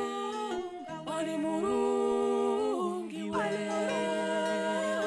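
Background music: unaccompanied voices humming and singing long held notes that step from one pitch to the next.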